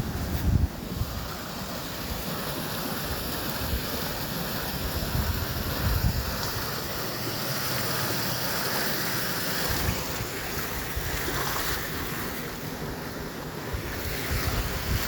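Wind buffeting a phone's microphone in low gusts over a steady rushing hiss, with no clear single event.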